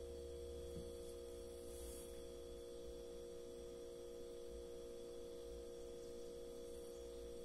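Faint steady electrical hum with a constant held tone over it: room tone.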